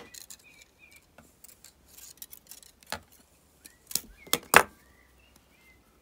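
Small sharp clicks and ticks of copper wire being worked with nylon-jaw pliers and fingers, with a cluster of louder clicks about four seconds in.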